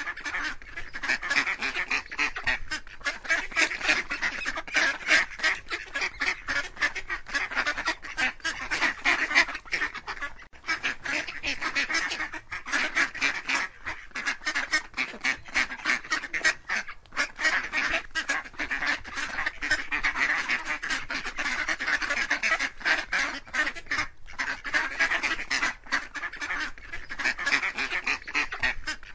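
A flock of ducks and geese quacking and honking, many calls overlapping without a pause.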